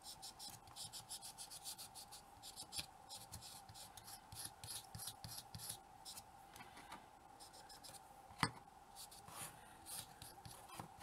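Fingertips rubbing silver metallic paste onto the bars of a small painted miniature grate: faint, quick repeated rubbing strokes, with one sharp tap about eight and a half seconds in.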